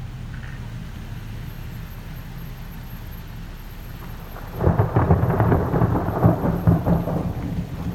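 Thunder: a sudden crackling clap about halfway through, breaking into a loud rumble with repeated sharp cracks that carries on to the end, over steady low background noise.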